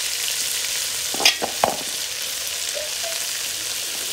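Ground chana dal paste sizzling steadily as it fries in hot ghee in a metal pot, with two sharp knocks against the pot about a second and a half in.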